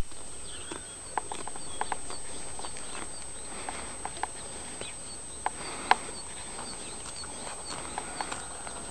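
Cow grazing, tearing off grass in short, irregular snaps, with small birds chirping faintly.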